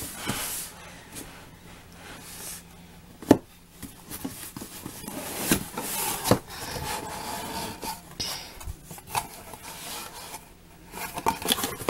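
Corrugated cardboard mailer box being handled and opened by hand: the cardboard rubs and scrapes, with sharp snaps as the tucked lid is pulled free and folded back. The loudest snap comes about a third of the way in.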